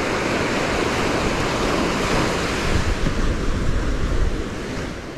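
Gulf surf washing onto the beach, with wind buffeting the microphone in a heavy low rumble a few seconds in that eases near the end.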